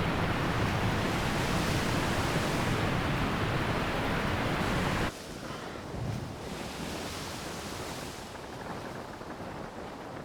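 Seawater surging and rushing, with wind buffeting the microphone. About halfway through the sound drops suddenly to a quieter wash.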